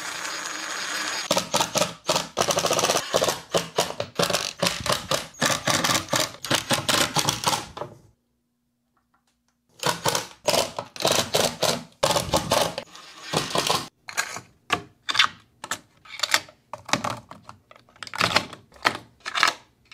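Ryobi impact driver hammering in rapid strokes as it drives screws into 3D-printed holders on a wall board. After a pause of about two seconds near the middle, it comes in shorter, separate bursts and knocks.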